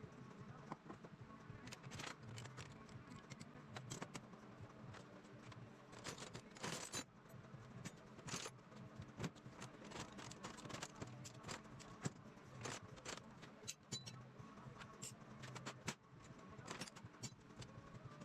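Metal hand tools clinking, clattering and being set down in irregular, quick knocks, over faint background music.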